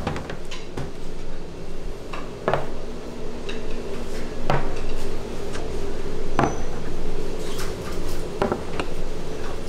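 Dishes and metal utensils clinking and knocking in a restaurant, irregular strikes with the strongest about every two seconds, over a steady low hum.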